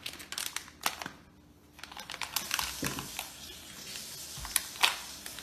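A packet of mix crinkling and rustling as it is handled and pulled at to tear it open, with sharp crackles; there is a short lull about a second in, and the loudest crackles come near the end.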